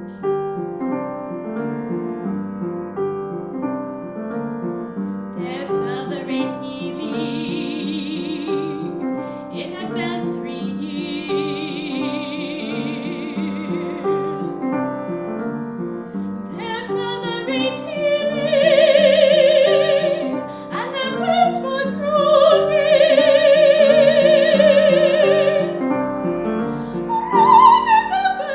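A woman singing an art song in classical style with vibrato, accompanied by piano. The piano plays alone at first, the voice comes in softly about six seconds in, and it sings louder, sustained notes from about eighteen seconds.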